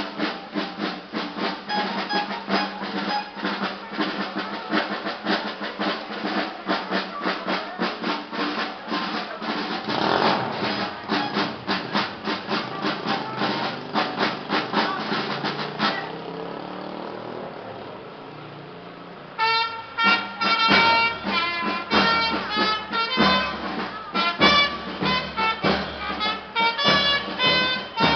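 Band music with brass and drums: a dense, fast drum beat under brass for roughly the first sixteen seconds, a softer lull, then from about twenty seconds in the band comes back sharply with clear held brass notes over the beat.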